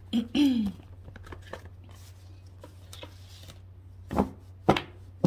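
A deck of oracle cards being shuffled and handled, with light rustling and clicks of the cards. It opens with a short voiced murmur falling in pitch, and ends with three sharp knocks of the cards against the table.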